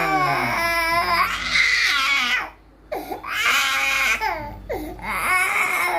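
A baby crying in long, high wails, with a brief pause for breath about two and a half seconds in.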